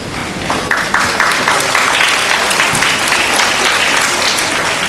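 Audience applauding, the clapping starting about half a second in and holding steady.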